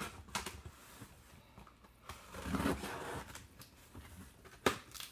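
Tape on a cardboard shipping box being cut and the box worked open: irregular scraping, rustling and tearing of tape and cardboard, with a sharp click near the end.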